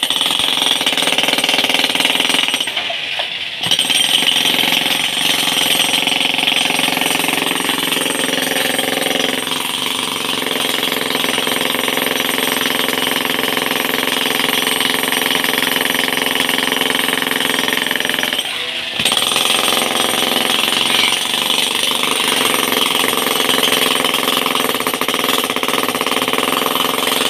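Corded electric demolition hammer chiselling into a reinforced concrete slab, running in a loud, steady rapid hammering. It stops briefly twice, about three seconds in and again near the end of the middle.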